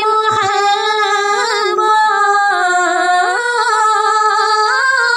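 A woman singing an Urdu naat in a single voice, drawing out long held notes that step up and down in pitch.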